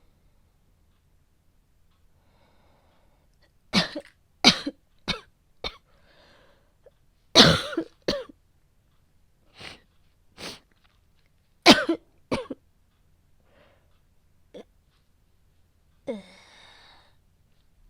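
A young woman coughing in fits, acting a girlfriend with a cold and a sudden high fever: four quick coughs about four seconds in, a harder cough around the middle, then more single coughs, and a breathy groan near the end.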